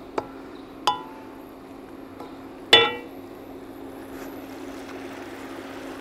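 Wet spinach sizzling in hot olive oil in a stainless steel pan, a steady hiss. Three sharp metallic clinks ring out from the pan, about a second in and loudest near three seconds in.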